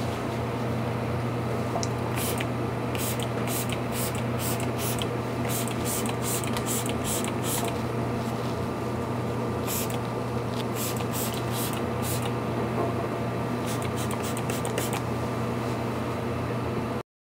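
Plastic trigger spray bottle misting a thinned shellac finish onto carved cherry wood: quick spritzes fired in runs, with short pauses between runs, over a steady low hum. The sound cuts off suddenly near the end.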